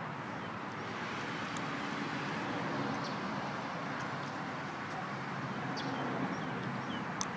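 Steady road traffic noise from cars on a multi-lane road, with a few faint clicks.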